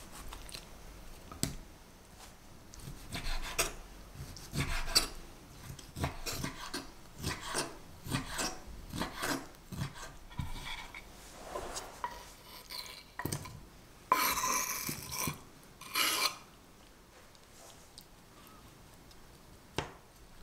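Ceramic knife cutting and chopping peeled orange flesh on a wooden cutting board: a run of short, wet cutting strokes, then a few louder scrapes of the blade on the board.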